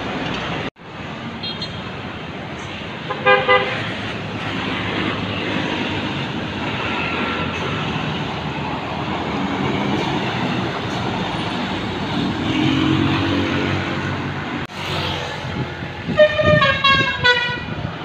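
Indonesian tourist buses on the road with engines running, sounding a multi-tone telolet Basuri horn: a short burst of horn notes about three seconds in, and near the end a quick run of stepped notes playing a telolet melody. The sound breaks off abruptly twice at cuts between clips.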